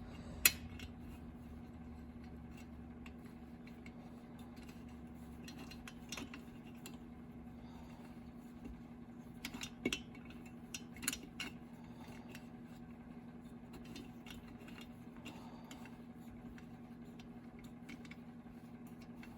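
A few small metallic clicks and taps of a bolt and Allen wrench against a chainsaw muffler as the bolt is worked into its thread by hand, over a steady low hum. The clicks come about half a second in and again around ten and eleven seconds in.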